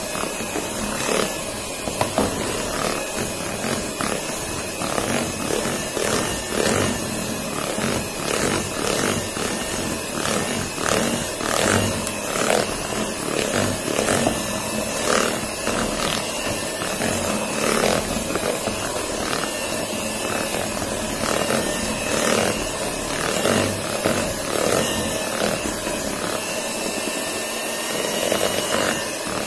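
Electric hand mixer running steadily, its twin wire beaters whipping butter and icing sugar into buttercream, with frequent clicks as the beaters knock against the bowl.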